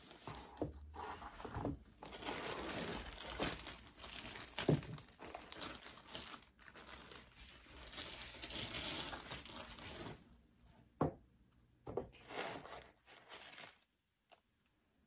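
Tissue paper and plastic wrapping crinkling and rustling almost without a break as a sneaker is unpacked from its shoebox. Near the end come a couple of short light knocks and one last brief crinkle.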